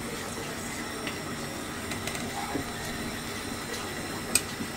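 Cookware handling over a steady hiss: a few faint clicks, then one sharp metal clink about four seconds in as a pot of cooked beef is tipped against the rim of the biryani rice pot.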